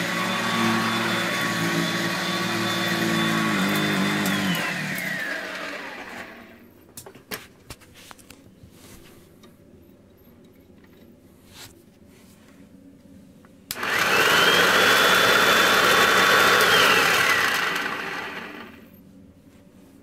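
Hoover Junior 119 upright vacuum cleaner, its brush-roll bearings freshly refurbished, running and then switched off, its motor whine falling in pitch as it spins down over a couple of seconds. After a few clicks, it is switched on again about two-thirds of the way in, runs for about three seconds, and is switched off, winding down again.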